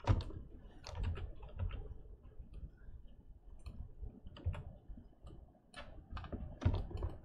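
Irregular clicks and taps of a computer keyboard and mouse, a few at a time with short gaps between.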